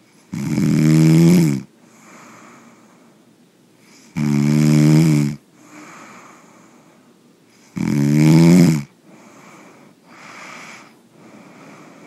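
A person snoring loudly: three long snores, each about a second long and coming roughly every three and a half seconds, with fainter breaths between them.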